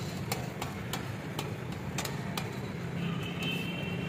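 Metal spatulas tapping and knocking on a flat steel griddle: sharp, irregular clicks roughly every half second over a steady low hum.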